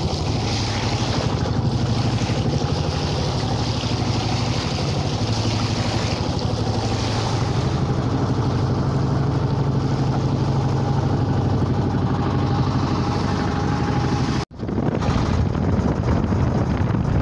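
Small fishing boat's engine running steadily under way, with water rushing along the hull and wind on the microphone. The sound drops out for an instant near the end.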